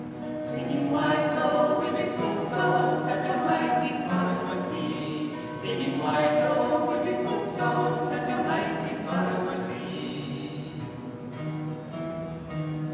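A small group of men and women singing together in sung phrases, accompanied by an acoustic guitar.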